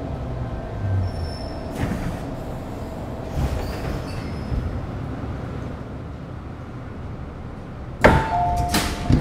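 MTR Metro-Cammell M-Train (GEC GTO chopper EMU) running slowly with a steady rumble that fades as it comes to a stop at the station. About eight seconds in there is a sudden loud clunk, then a two-tone electronic chime as the doors open.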